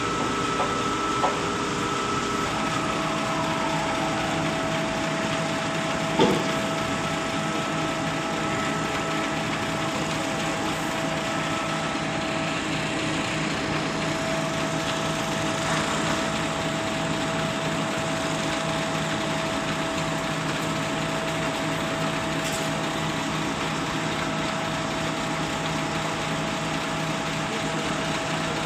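XCMG concrete pump truck running, its engine and hydraulics giving a steady mechanical noise with a high whine that drops in pitch a few seconds in. A single knock comes about six seconds in.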